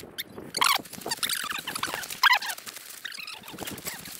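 Rustling and scraping in dry leaves and brush as a roe deer carcass is dragged along the forest floor, uneven, with scattered high squeaky scratches.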